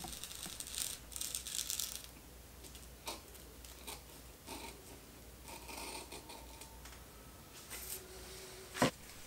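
Large shears cutting thin 1.1-ounce silicone-impregnated nylon: quiet snips and rustling of the slippery fabric, with a few short clicks of the blades and a sharper click just before the end.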